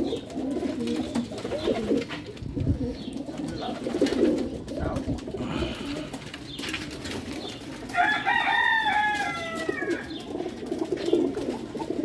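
A flock of domestic pigeons cooing steadily in their loft, with a higher-pitched bird call about eight seconds in that lasts about a second and a half.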